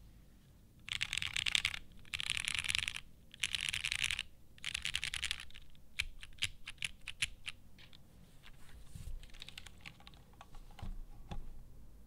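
Typing on a Matrix 8XV 2.0 Additional mechanical keyboard with a polycarbonate plate, lubed Butter Brown tactile switches and GMK keycaps: four quick bursts of fast keystrokes, then slower, separate keystrokes. Two duller knocks near the end.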